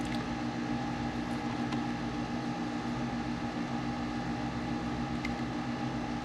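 Long Wei PS-3010DF lab power supply running with its output shorted for a current test: a steady hum, with a few faint clicks.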